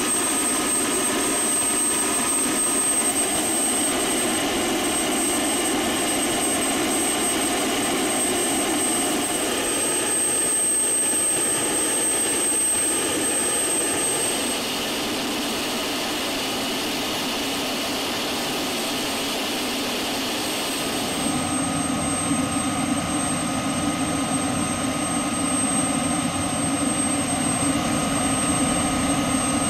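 Helicopter turbine engines running steadily, a continuous roar with a thin high-pitched whine over it. The whine fades for several seconds in the middle and returns strongly about 21 seconds in.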